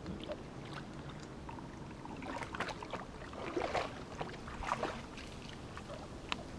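Filtered water spurting from a squeezed OKO filter bottle into a container below it, in uneven squirts and trickles, most of them in the middle of the stretch.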